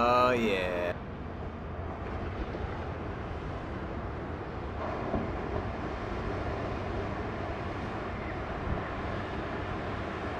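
Strong offshore wind buffeting the microphone over the steady rush of ocean surf, with a brief falling shout at the very start.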